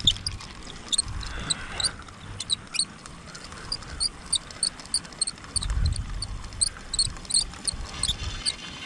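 A run of short, high squeaky chirps, about three a second, over low wind buffeting on the microphone that gusts harder about six seconds in.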